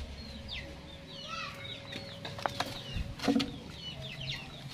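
Birds chirping over and over in short, quick falling chirps, with a low rumble underneath and a few sharp knocks around the middle.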